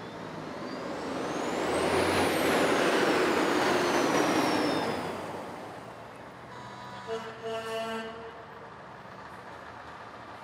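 A vehicle passes close by: a rushing swell of tyre and engine noise that builds, peaks about two to four seconds in and fades away. About seven seconds in, a truck's air horn gives a few short blasts.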